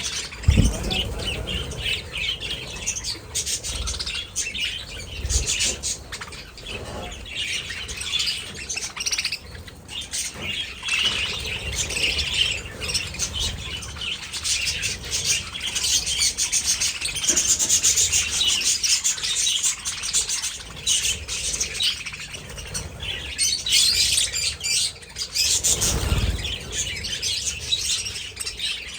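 A flock of budgerigars chirping and chattering continuously, many birds at once. Two low thumps stand out, one about half a second in and one near the end.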